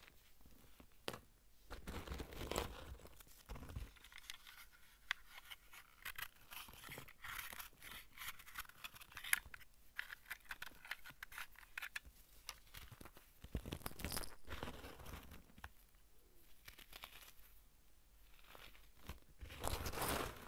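Hands crushing and crumbling dried clumps of dyed Comet cleanser powder ("comet dust"): a dry, crisp crunching and crackling made of many small crunches, with louder bursts of crumbling about two seconds in, midway and near the end.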